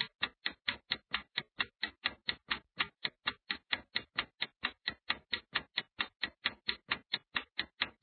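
Countdown timer sound effect: sharp, evenly spaced clock-like ticks, about five a second, marking the seconds running out to answer a riddle.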